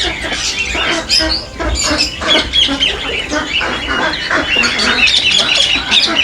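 A flock of mixed captive birds calling and squawking at once, many short overlapping calls with no pause.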